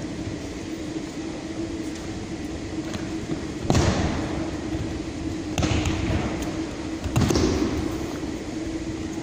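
Three thuds of aikido attackers taking breakfalls on tatami mats, about two seconds apart, each with an echo in a large hall. A steady hum runs underneath.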